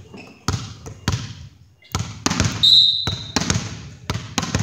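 A volleyball bouncing on a hardwood gym floor, a run of echoing thuds at uneven intervals, with one short, shrill referee's whistle blast about two and a half seconds in.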